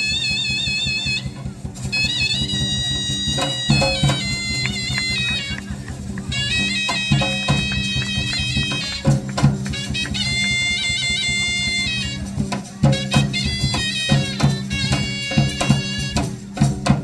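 Indian festival music: a reedy wind instrument plays a wavering, ornamented melody over a steady drone. Drum strokes grow prominent in the second half.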